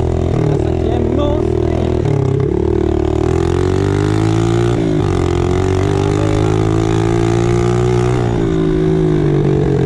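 Motorcycle engine running under way with a loud exhaust. Its note rises and falls several times as the throttle is opened and closed and gears change, with a sharp drop about five seconds in.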